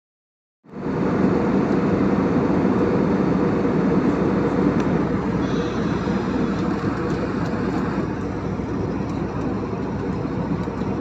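Steady noise of a jet airliner's engines and rushing air heard inside the cabin in flight, cutting in abruptly about a second in.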